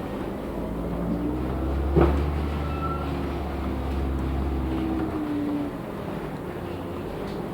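LiAZ 6213.65 articulated city bus heard from inside the cabin while driving: engine and drivetrain running with shifting pitched tones. A sharp knock about two seconds in, then a louder low drone that eases off after about five and a half seconds.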